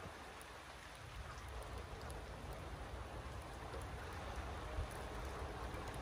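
Steady rain falling, with scattered faint drop ticks and a low rumble underneath that grows about a second in.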